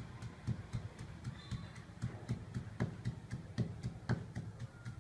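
Wooden pestle pounding in a mortar, crushing herbs into a paste: a steady run of dull thuds, about two to three strokes a second.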